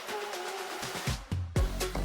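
Background music with a melody; a deep bass-drum beat comes in about a second in.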